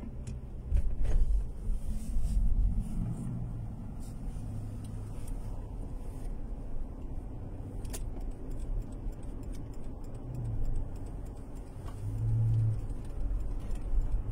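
Car driving, heard from inside the cabin: a steady low rumble of engine and road. There are louder low thumps about one and two seconds in and a sharp click just past the middle.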